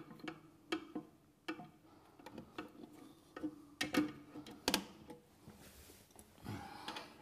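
Adjustable spanner working the back nut of a toilet cistern's float valve loose: irregular sharp clicks and taps of the tool on the fitting, with a short scuffle near the end.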